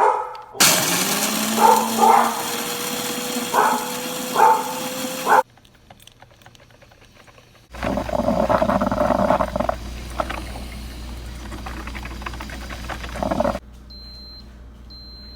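Cuisinart DGB-450 grind-and-brew coffee maker's built-in grinder running for about five seconds after switch-on, with a steady whine and a dog barking several times over it. After a short pause comes about six seconds of hissing, gurgling brewing noise, then two short high beeps near the end.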